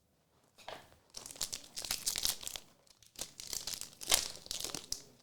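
Foil trading-card pack wrappers crinkling and tearing as packs are handled and opened, a dense crackle with sharp clicks that starts about half a second in.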